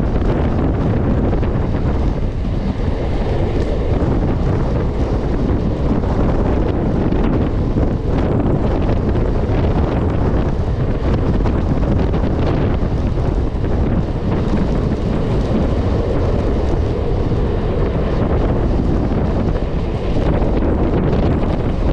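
Steady rush of wind on the microphone over the running noise of a Mumbai suburban electric local train, heard from its open doorway at speed.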